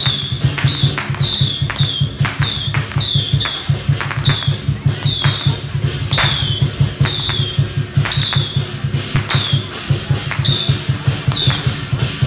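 Temple procession percussion playing for the dancing deity puppets: fast, dense drumming under a high metallic note struck about twice a second, each strike dropping slightly in pitch.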